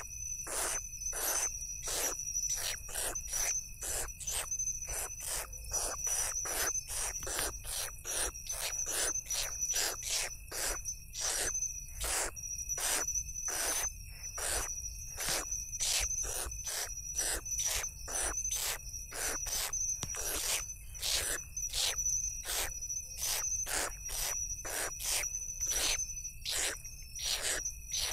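Owl chicks giving short hissing begging calls about two to three a second while being fed, over a steady high trill of crickets.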